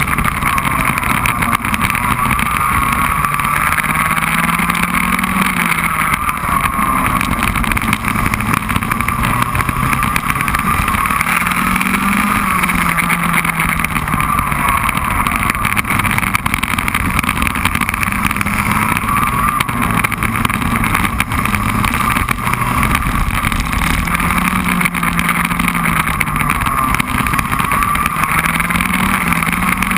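Racing kart engine running at race pace: a continuous engine note whose pitch rises and dips every few seconds as the kart accelerates out of corners and slows into them, over steady wind and road noise.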